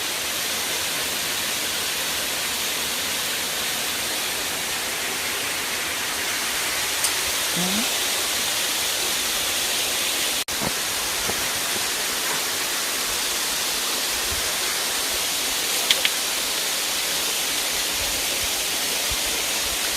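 Waterfall water rushing, a steady even hiss, broken by a momentary gap about halfway through.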